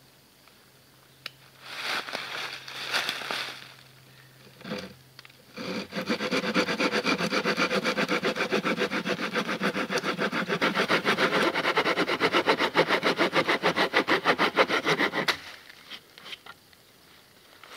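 Hand saw cutting a V-notch into the end of a wooden log: a few short strokes first, then from about five seconds in a fast, even run of sawing strokes that stops about fifteen seconds in.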